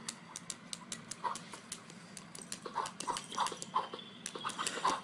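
A dog's paw and claws tapping repeatedly on a tablet's glass screen, a quick run of sharp clicks, with a few short high-pitched sounds in the second half.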